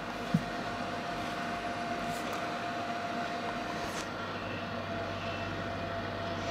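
Steady background hum and hiss with a faint constant whine running underneath; a light click just after the start.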